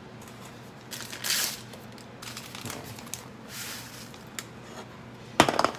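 Paper instant-oatmeal packet being handled and torn open, crinkling in a few short rustles, then emptied over a pot, with a brief loud rattle near the end.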